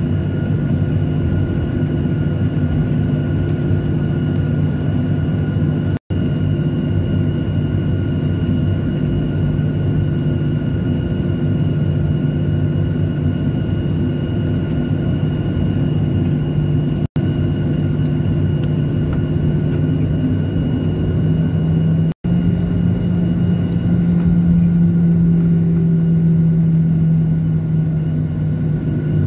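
Jet airliner's turbofan engines and cabin noise heard from a seat over the wing during taxi: a steady rumble with a low hum and faint high whining tones. About 23 seconds in, the hum rises a little in pitch and grows louder as thrust is added. The sound breaks off briefly three times at edit cuts.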